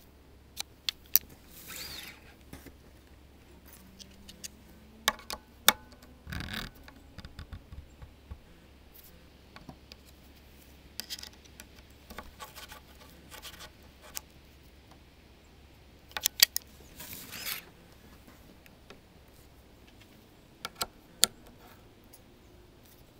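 Sharp metallic clicks and short scrapes from a hex key and dial indicator working the adjustment bolts of a steel bamboo rod planing form, coming in a few separate bursts with quiet between.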